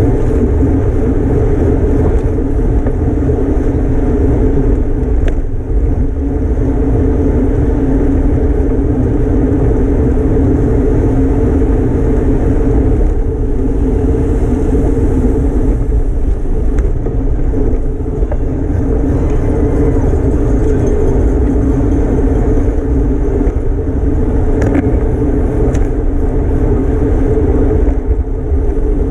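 Steady rush of wind and road noise on a racing cyclist's camera microphone at race speed, with a low steady hum from the tyres on the road.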